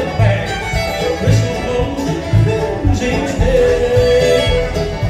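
Live bluegrass band playing: banjo, mandolin, acoustic guitar and fiddle over a steady upright-bass beat, heard through the stage PA.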